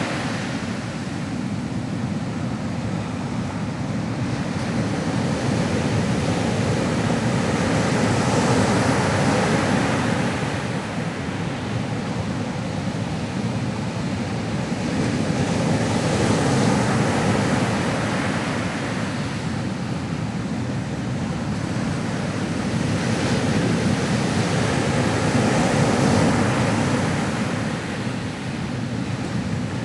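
Ocean waves breaking and washing on a shore, a steady surf that swells and eases every few seconds.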